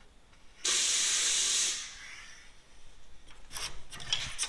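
A loud hiss lasting about a second, starting a little under a second in and tailing off. Near the end come several short scratchy strokes: a marker drawn along a steel rule across a steel plate.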